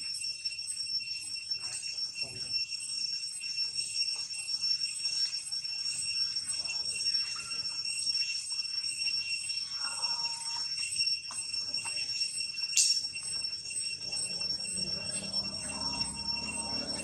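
Cicadas droning steadily at a high pitch, with a single sharp click about thirteen seconds in.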